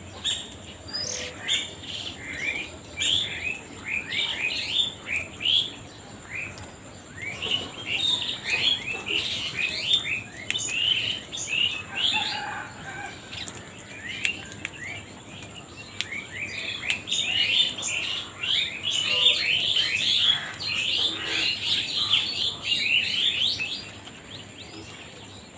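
Birds chirping: dense runs of short, high, quick chirps, several a second, with brief lulls, dying away near the end.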